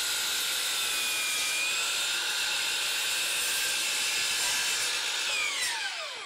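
DeWalt FlexVolt 12-inch sliding miter saw's brushless motor running at full speed while its 60-tooth blade cuts through a pine stair tread, a steady high whine. About five and a half seconds in the trigger is released and the blade spins down, its pitch falling away.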